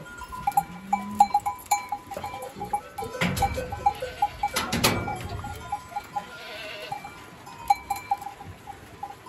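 A packed herd of goats milling about, with the metal bells on them clinking irregularly at a steady pitch. Two louder, short sounds stand out about three and five seconds in.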